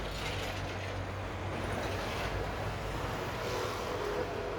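Steady background noise of road traffic, with no single event standing out.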